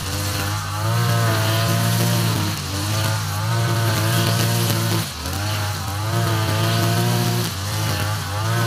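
Backpack brush cutter with nylon trimmer line running at high speed while cutting grass, its engine note dipping and recovering every couple of seconds as the line sweeps into the grass.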